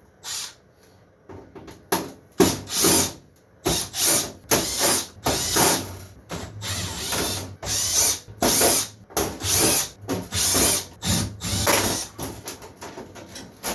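Cordless driver backing out screws, run in about fifteen short bursts of half a second to a second each.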